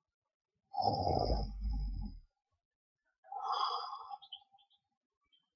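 An elderly man snoring in his sleep: two snoring breaths, the first about a second in, loud with a low rumble, the second about three seconds in, softer and without the rumble.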